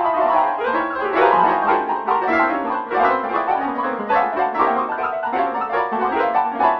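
MIDI piano music: a synthesized piano plays a busy melody over chords with many quick notes.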